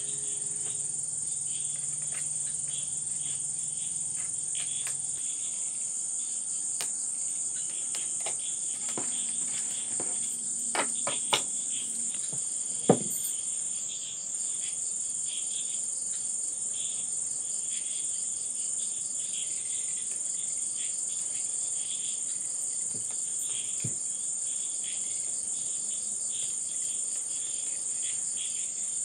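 Crickets chirping in a steady, high-pitched, continuous trill. Near the middle there are a few light clicks and one sharper knock.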